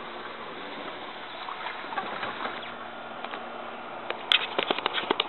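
Water splashing and sloshing in a plastic kiddie pool as a dog moves about in it, with a quick run of sharp knocks starting about four seconds in.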